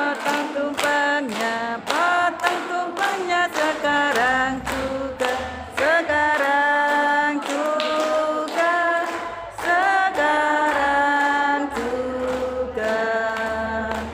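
A group of women singing a song together without instruments, clapping along steadily in time.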